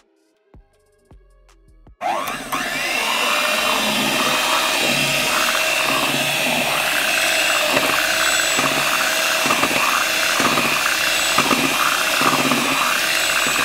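Faint electronic music, then about two seconds in an electric hand mixer starts and runs steadily, its beaters turning in cake batter.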